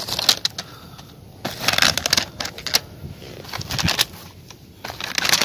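Woven plastic sack crinkling and rustling against a wire-mesh snake trap as it is handled, in short crackly bursts: one at the start, a longer one about two seconds in, and another near the end.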